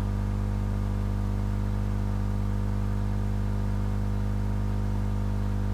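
Steady electrical mains hum with its overtones, a constant low buzz picked up by the recording setup.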